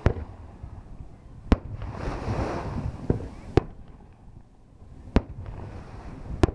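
Fireworks going off: about six sharp bangs a second or so apart, one of them fainter. A rushing noise swells between the second and third bangs.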